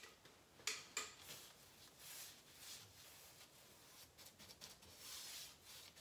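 Paintbrush strokes laying satin paint along the top of a wooden door frame: faint soft swishes of the bristles, two longer strokes standing out, with two light clicks about a second in.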